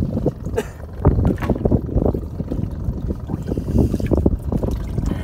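Seawater sloshing and gurgling unevenly in a boat's wooden fish well holding live groupers.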